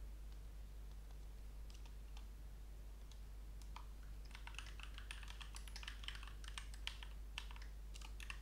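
Computer keyboard typing, faint: a few scattered keystrokes at first, then a quick, dense run of key clicks from about four seconds in.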